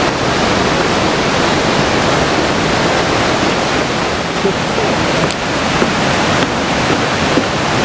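Steady loud rush of fast-flowing river water below the trail, an even roar with no breaks.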